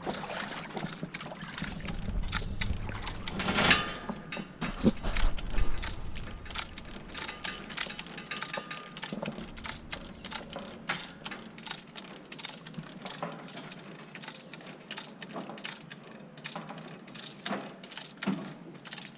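Irregular knocks, clicks and scraping of hand work on a wooden dock, with a low rumble and the loudest knocks in the first six seconds.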